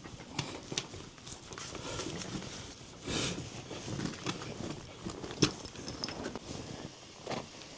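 Boots crunching and scraping on snow and ice in uneven steps while climbing, with a longer scrape about three seconds in and a sharp knock about five and a half seconds in, the loudest sound.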